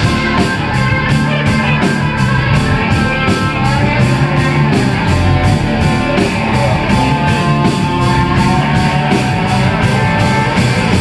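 Live rock band playing an instrumental passage: electric guitar over bass and drums, with a steady cymbal beat at about three strokes a second.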